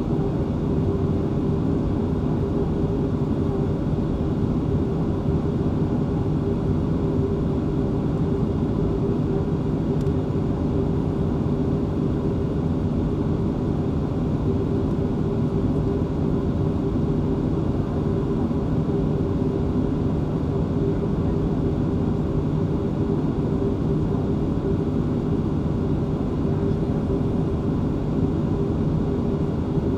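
Inside the cabin of a Boeing 737-500, its CFM56 turbofan engines idle on the ground. The sound is a steady drone with a constant hum in it that does not change.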